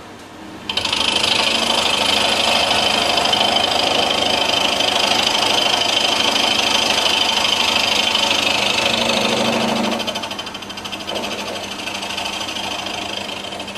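Milling-machine end mill cutting across the top face of a cast iron engine part: a loud, steady cutting noise that starts abruptly about a second in and becomes quieter after about ten seconds.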